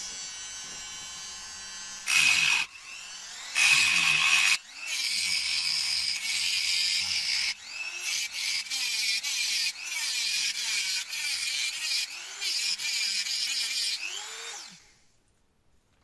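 Rotary multitool with a small cut-off disc, first whining freely, then grinding into the copper shell of a refrigerator filter drier to cut it open: two short cuts about two and four seconds in, then a long cut broken by brief pauses. The tool stops about a second before the end.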